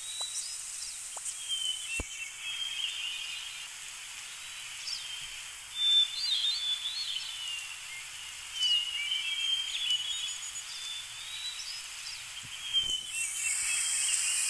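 Small songbirds chirping and whistling in short phrases over a steady outdoor hiss. The hiss swells to a brighter rush for the last second or so.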